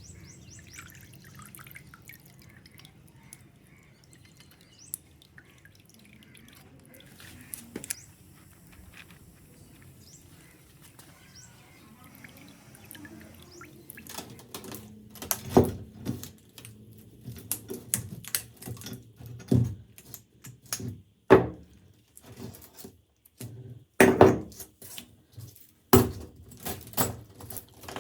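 Hand work with metal parts and tools at a bench: faint scraping at first, then from about halfway an irregular series of sharp knocks and clinks, a loud one every second or two.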